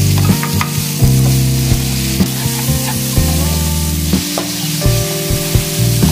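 Diced onions and bell peppers sizzling in hot oil in a non-stick pan, stirred with a slotted spatula that clicks and scrapes against the pan at irregular moments. Background music with held low notes plays underneath.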